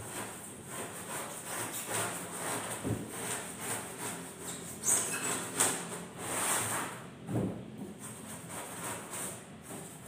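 Sandpaper rubbed by hand over a Styrofoam boat hull, a run of irregular scratchy strokes, a couple of them louder about five to seven seconds in.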